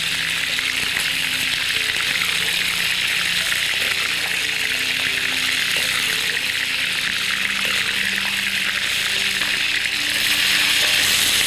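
Hot oil sizzling steadily in a wok around a whole chicken frying, as oil is ladled over the skin; the sizzle gets louder near the end.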